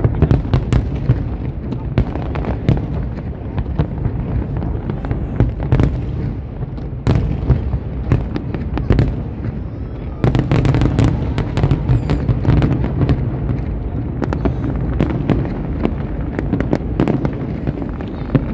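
Aerial fireworks bursting in a dense run of sharp bangs and crackling over a continuous low rumble, the barrage getting thicker and louder about ten seconds in.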